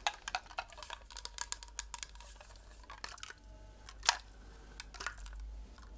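Hands tapping and handling a small plastic thermos and its freezable insert: a quick run of light clicks and taps that thins out after about three seconds, with one sharper click about four seconds in.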